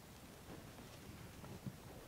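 Quiet outdoor stillness with a few faint, soft knocks and rustles from dry twigs and tinder being handled.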